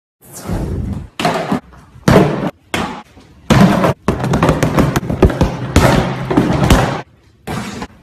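Movie fight sound effects: heavy punch and kick impacts and thuds. There are several separate hits in the first three seconds, then a dense flurry of blows from about three and a half seconds to seven, and one more hit near the end.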